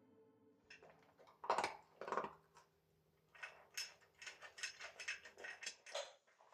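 Light kitchen handling sounds: two louder knocks, then a run of small, irregular taps and clicks.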